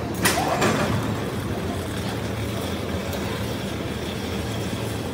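Molten metal pouring from a furnace spout into a ladle: a sudden hissing splash about a quarter of a second in, then a steady low drone of foundry machinery under the pour.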